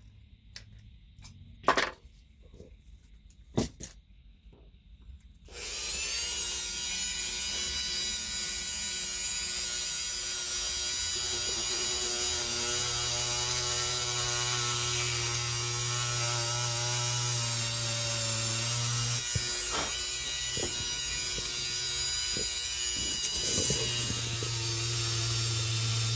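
A few sharp clicks, then about five seconds in a small electric drill starts and runs steadily, boring a hole through a circuit board. A deeper hum joins it about halfway through, drops out briefly, and comes back near the end.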